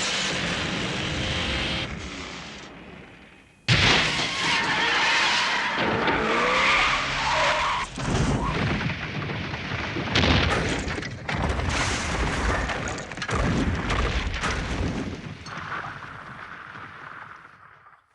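Film sound effects of vehicle engines and tyres skidding. Everything fades at first, then a sudden loud crash-like hit about four seconds in starts a dense stretch of screeching skids and engine noise. Several more sharp hits follow before it all fades out near the end.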